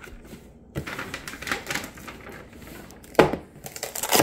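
Cardboard packaging handled on a table: scraping and rustling with scattered clicks, a sharp knock about three seconds in, and a cluster of knocks near the end.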